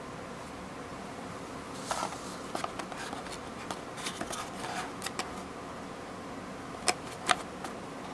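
Small cardboard box being picked up and turned in the hands: light rustling and tapping of fingers on the cardboard, with two sharper ticks near the end, over a steady background hiss.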